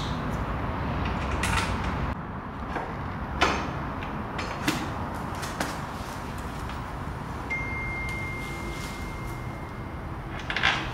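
Scattered clicks and knocks of hand work on a new motorcycle's front end and its steel shipping crate, over a steady low background noise. A thin, high, steady tone sounds for a couple of seconds past the middle.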